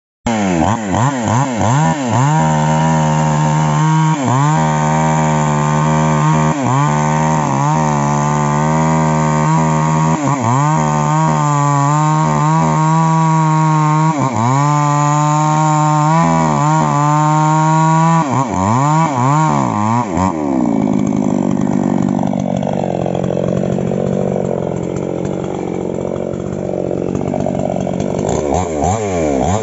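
Falcon two-stroke petrol chainsaw cutting into a tree trunk, its engine note rising and dipping again and again as the chain loads in the wood. About twenty seconds in the pitch drops lower and rougher for several seconds, then it revs high again near the end.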